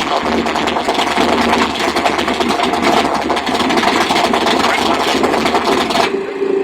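Pontiac Firebird's engine idling loud, with a fast, even pulsing; it cuts off suddenly near the end.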